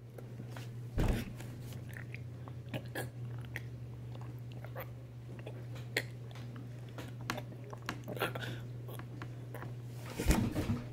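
Person chewing something very sour close to the microphone: wet mouth clicks and smacks over a steady low hum, with a thump about a second in and another near the end.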